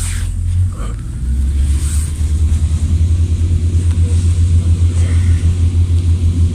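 Low, loud rumble of a moving vehicle heard from inside, settling into a steady rhythmic throb about a second in.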